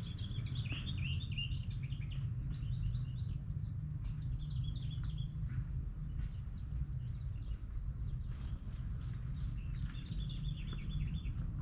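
Small birds chirping and twittering in several short bursts, over a steady low rumble.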